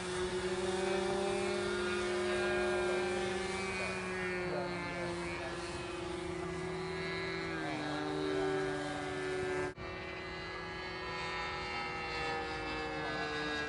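Radio-controlled model aircraft flying, its motor and propeller giving a steady pitched drone that sinks a little in pitch partway through. The sound breaks off for an instant about ten seconds in, then carries on.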